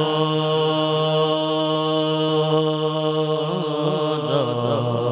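A man's voice singing a naat unaccompanied into a microphone. He holds one long note for about three seconds, then breaks into wavering melodic ornaments.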